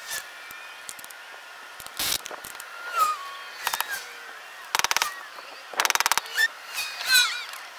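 Small birds chirping, with the loudest chirps near the end. Several short bursts of rapid rattling clicks come about two, five and six seconds in.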